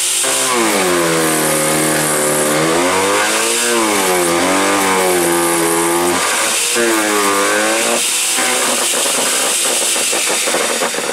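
IKRA IMH 2500 electric knife shredder running loud and chopping a 20 mm branch. Its motor whine sinks in pitch as the blades bite into the wood and climbs again as they clear, several times over. Rapid cracking of the wood follows near the end, the blades cutting through it easily.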